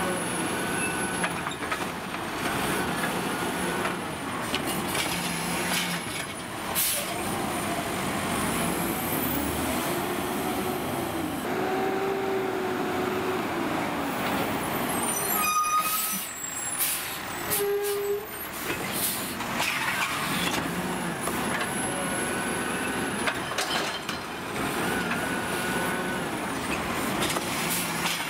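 Heil 7000 automated side-loader garbage truck at work. Its diesel engine revs up and down in two long swells as the hydraulic arm cycles a cart, and there are several short air-brake hisses as the truck stops and moves on.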